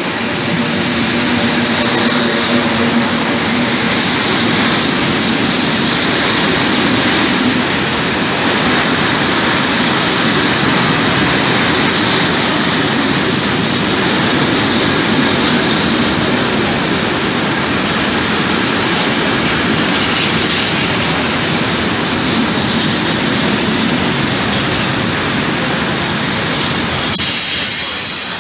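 Freight train of hopper wagons behind an FS E.652 electric locomotive rolling past at close range: a loud, steady rumble of steel wheels on rail, with a humming tone from the locomotive in the first few seconds. A high wheel squeal runs over the rumble and grows sharper near the end.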